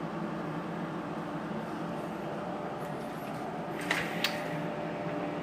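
Steady low room hum, like a fan or air conditioner running, with two short sharp clicks a third of a second apart about four seconds in.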